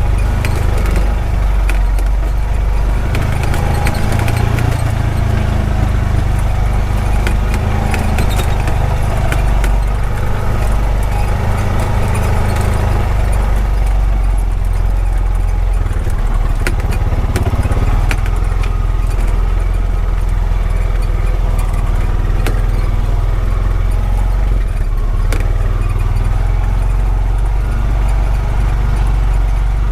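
Honda Pioneer 520 side-by-side running steadily along a rough dirt road, its engine a constant low drone, with scattered knocks and rattles from the machine jolting over bumps.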